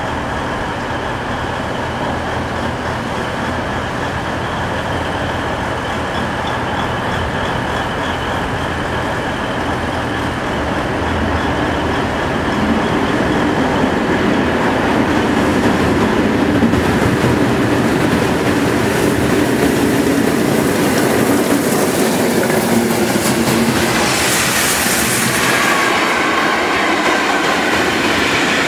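A train running through the station, its rumble and clatter growing louder about halfway through. Near the end there is a burst of hiss, followed by high steady squealing.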